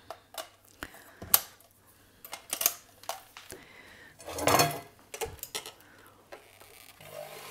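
Clicks, knocks and clatter of a hand mixer and kitchen utensils being handled, the longest clatter about four and a half seconds in. Near the end a Siemens electric hand mixer switches on and its motor runs with a steady hum as the wire beaters start whipping cream.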